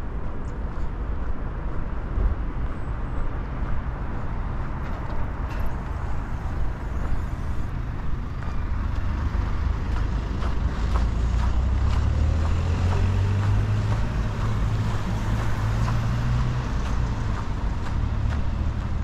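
Road traffic rumbling steadily. A large vehicle's engine drone swells about ten seconds in and eases off near the end.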